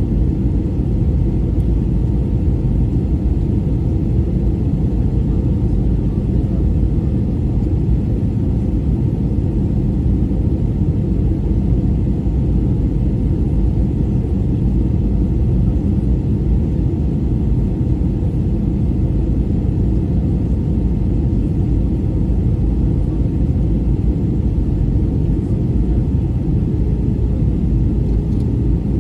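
Steady low rumble inside the cabin of an easyJet Airbus A320-family airliner in flight, the engine and airflow noise heard from a window seat over the wing.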